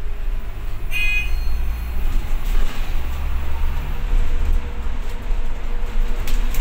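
Cabin noise inside a London double-decker bus: a steady low rumble of the engine and road. About a second in, a single short bell chime sounds, the passenger stop-request signal, with a brief click near the end.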